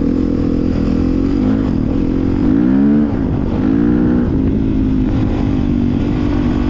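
Dirt bike engine running under way. Its pitch climbs as the throttle opens about two and a half seconds in and drops sharply at about three seconds, then climbs again briefly before settling into a steady pull.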